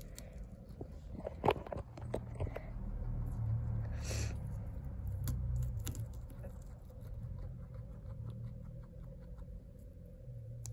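A small pet nibbling and chewing a leafy green held to its cage bars: quick, soft crunching bites with a few sharper clicks early on and a brief hiss about four seconds in.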